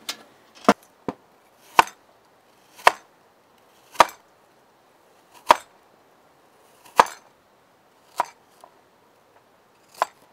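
Kitchen knife chopping a green apple into chunks on a plastic cutting board: single sharp chops, roughly one a second and unevenly spaced.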